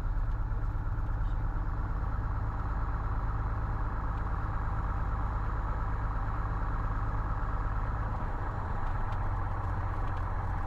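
Cessna 172H's six-cylinder Continental O-300 engine running steadily at low taxi power, heard from inside the cockpit.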